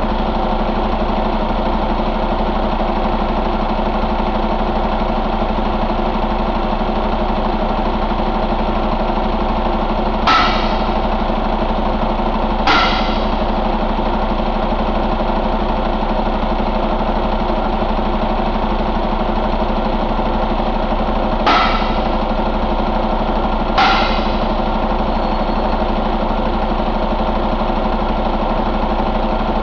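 2016 Cummins ISX15 inline-six diesel engine idling steadily. Four short, sharp snaps cut through the idle in two pairs, each pair about two seconds apart: one pair about a third of the way in and one about three quarters in.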